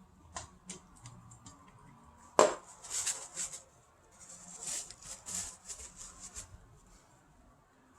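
Parts of a tower fan being handled during disassembly and cleaning: a few small clicks, one sharp knock about two and a half seconds in, then two spells of scratchy rubbing and scraping.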